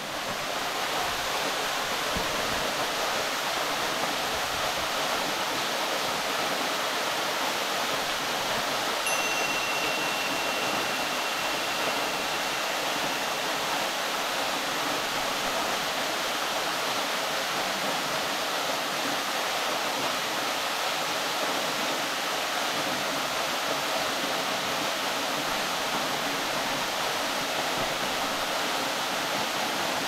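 Waterfall spilling down a rock face into a pool: a steady, even rush of falling water. A thin high tone sounds for a few seconds about nine seconds in.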